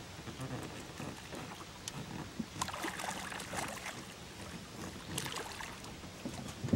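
Water splashing and sloshing as a hooked channel catfish thrashes at the surface beside a boat. The splashes come and go, busiest about halfway through.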